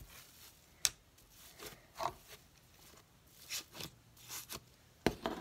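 Blue slime being kneaded, pressed and pulled by hand on a tabletop, giving scattered short sticky pops and crackles, with a sharper click near the end.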